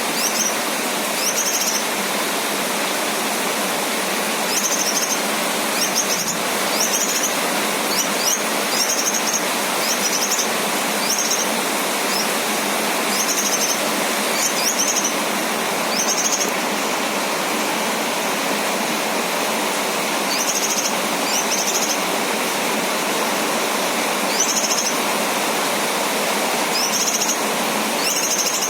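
A male cucak kinoy giving short, high chirping calls, often in quick pairs, at irregular intervals over a steady hiss of rain.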